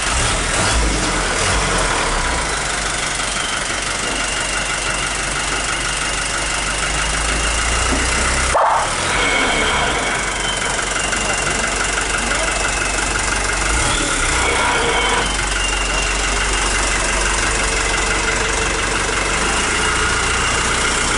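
Fire truck engine idling steadily, with indistinct voices.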